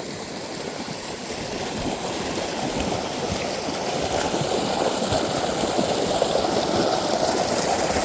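Creek water running steadily, growing a little louder toward the end.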